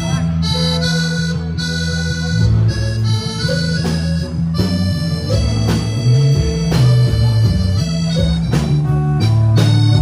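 Loud music played over large PA speakers, with a heavy bass line and held melody notes.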